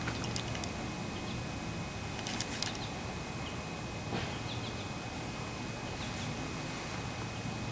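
Steady outdoor background noise with a low hum. A few short, faint high chirps and clicks come and go, the clearest cluster about two and a half seconds in.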